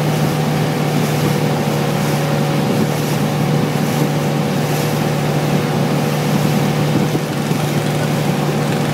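Motorboat engine running steadily under way, a constant low drone, with rushing wind and water noise over it.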